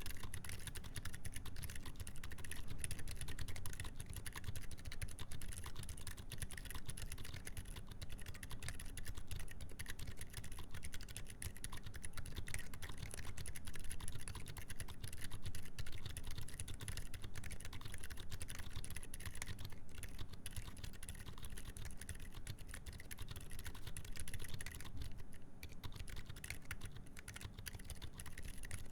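Continuous fast typing on a mechanical keyboard with Gazzew U4 Boba silent tactile switches, 62 g springs, a full FR4 plate and GMK keycaps: a rapid run of soft, muted keystrokes, the switches damped so there is no sharp click.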